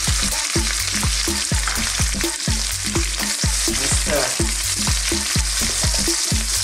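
Sliced red onions sizzling in hot oil with garlic and ginger in a non-stick wok, stirred with a wooden spatula. The frying hiss is steady and strong, just after the onions have gone into the oil.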